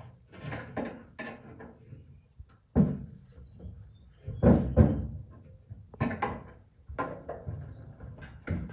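A series of irregular knocks and clunks from metal being handled while a car roof and its support bars are shifted into position. The loudest thuds come about halfway through.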